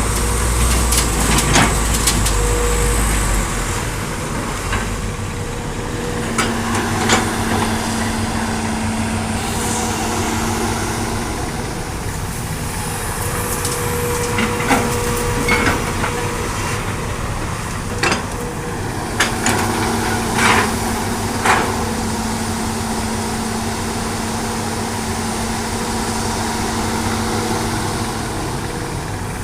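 Hydraulic excavator loading sandy soil into a dump truck: the diesel engine runs steadily with a held tone, and a dozen or so sharp clanks and knocks are scattered through it.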